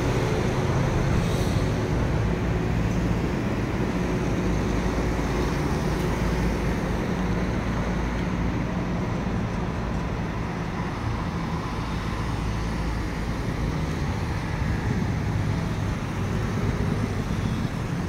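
Steady city road traffic, with cars, a van and a small truck driving past on the roundabout.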